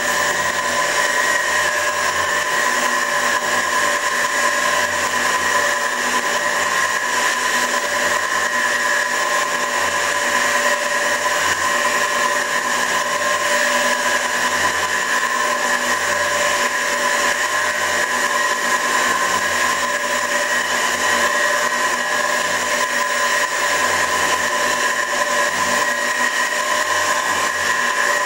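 Värnamo metal shaper running steadily: a constant mechanical whine from its motor and ram drive, holding a few steady pitches over a hiss, with no change through the stretch.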